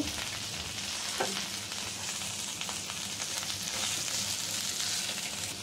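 Whole spices, onion and curry leaves sizzling in a little oil in a nonstick pan while a silicone spatula stirs and scrapes them, the spices roasting (bhuna) before the spinach goes in.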